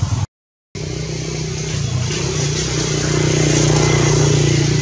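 A motor vehicle engine running steadily, its hum swelling slightly in the middle. The sound drops out completely for about half a second near the start.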